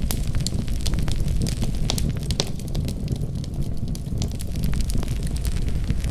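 Wood fire burning in a fireplace: a steady low rumble with frequent sharp crackles and pops, several a second.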